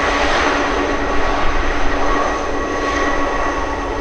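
Boeing 747-400F's jet engines running close by: a steady rushing roar with a held whine in several steady tones.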